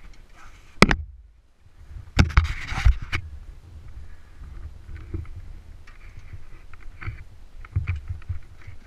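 Dune buggy driving over rough concrete, with wind rumbling on the onboard microphone and knocks and rattles from the chassis. There is a sharp knock about a second in and a louder burst of bangs and rattling around two to three seconds in.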